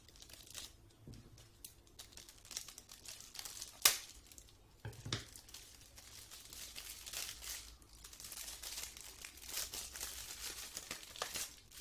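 Crinkling and tearing of shiny metallic foil gift wrap being pulled open by hand, with a sharp snap about four seconds in.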